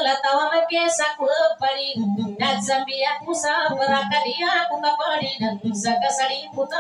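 A woman singing a long, wavering melodic line with strong vibrato, accompanied by a plucked guitar.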